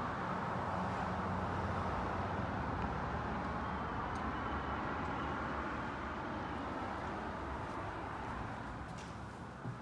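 Road traffic, a steady rush of passing vehicles that slowly fades over the last few seconds.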